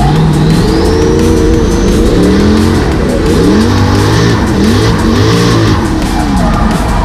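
Drift car's engine revving hard, its pitch rising and falling over and over as the throttle is worked through the slide, with tyres squealing, heard from inside the stripped, caged cabin.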